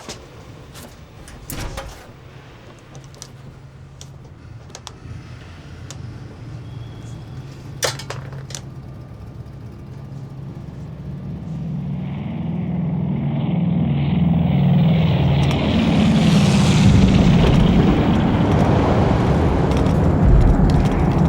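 Lancaster bomber's engines: a low hum with a few sharp knocks, then a rushing drone that swells from about halfway through and holds loud.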